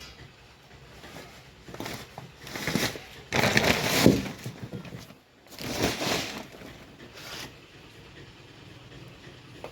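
A series of scraping, rustling noises in short bursts, loudest about three to four seconds in.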